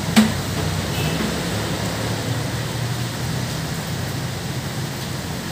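Rain falling steadily, an even hiss with a low rumble underneath, and a single sharp click just after the start.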